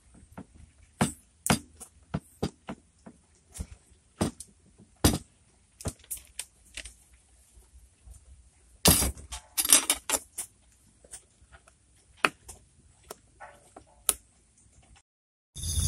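Stone pestle tapping and scraping against a volcanic-stone mortar (cobek) as egg is mashed into sambal: a run of sharp, irregular knocks with a busier scraping stretch about nine seconds in. Right at the end, steady insect chirring cuts in.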